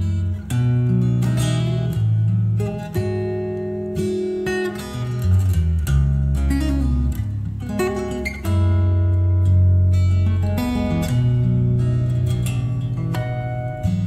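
A song playing, with acoustic guitar strumming and picking over deep held bass notes. There is no singing in this stretch.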